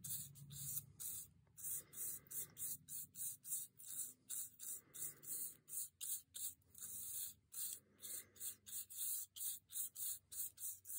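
Flat bristle brush scrubbing wet glaze back and forth over watercolour paper: faint, scratchy strokes repeating about two or three times a second.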